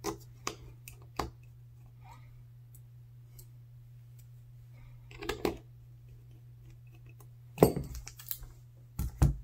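Scattered sharp clicks and taps of small hand work on a smartphone repair: three in the first second and a half, a short cluster about five seconds in, the loudest group near eight seconds and two more near the end, over a steady low hum.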